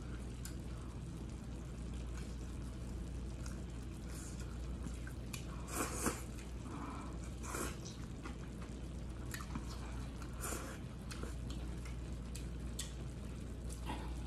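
Close-up eating sounds: wet chewing and slurping of glass noodles, with a few short louder slurps and small clicks of chopsticks against a plate, over a steady low hum.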